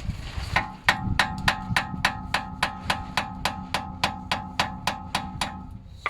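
Hammer tapping rapidly on a BMW driveshaft's steel end to drive it out of the wheel hub, about five metallic strikes a second with a steady ringing between them.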